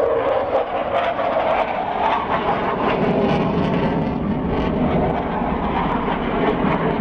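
Jet noise from MiG-29 fighters' twin RD-33 afterburning turbofans flying overhead, a continuous rushing roar that deepens a couple of seconds in.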